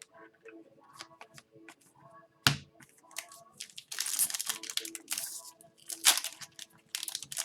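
Hockey trading cards being handled and shuffled: scattered clicks and rustling slides, with one sharp tap about two and a half seconds in and longer bursts of rustling in the second half.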